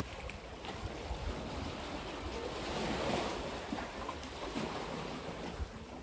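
Sea waves surging and washing against a rocky shore, swelling to a peak about halfway through and then easing off.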